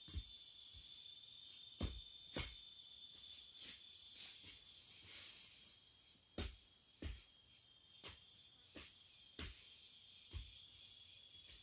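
Hoe blade chopping into dry soil, a dull strike every half second to a second with uneven gaps, faint at a distance. A steady high insect drone and small bird chirps run behind it.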